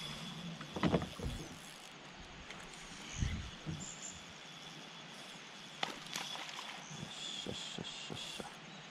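A black bass striking a soft-plastic swimbait on the surface, a short sharp splash about six seconds in. Around it are faint knocks of rod, reel and boat handling over quiet reservoir ambience.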